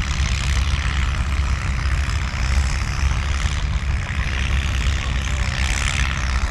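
Pulling tractor's engine running hard under load as it drags the weight-transfer sled down the track: a loud, steady, heavy rumble.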